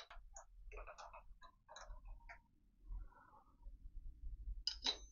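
Faint, irregular metallic clicks and taps of tools and fittings being handled on a milling machine, with two sharper clicks near the end.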